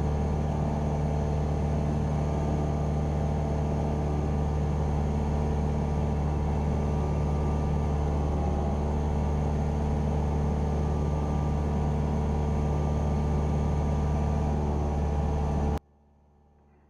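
Cessna 172R Skyhawk's four-cylinder Lycoming engine and propeller droning steadily in flight, heard inside the cockpit. The sound cuts off abruptly near the end.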